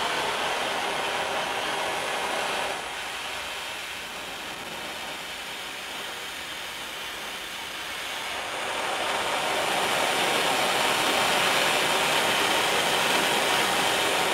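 Orca butane jeweler's hand torch burning with a steady hiss. The flame is turned down about three seconds in and the hiss gets quieter, then it is turned back up to a long flame from about eight seconds and the hiss grows louder again.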